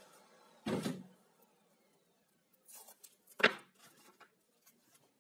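Small wooden pieces handled and set down on a table saw's metal top: a dull knock just under a second in, a sharp knock about three and a half seconds in, and light taps and scrapes between.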